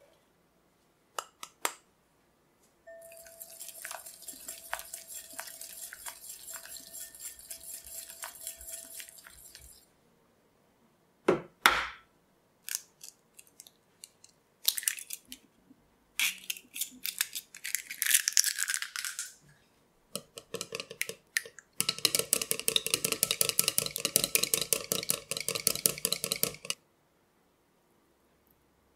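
A wire whisk stirs butter and powdered sugar in a glass bowl, its wires ticking quickly against the glass for about seven seconds. Near the middle, an egg is cracked with one sharp knock against a small glass bowl and its shell is pulled apart with scattered clicks and crackles. The egg is then beaten briskly in the bowl for about five seconds.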